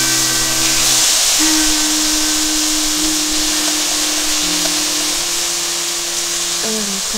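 Thin slices of marinated beef sizzling in a hot stainless steel pan, a steady hiss, over background music with long held notes.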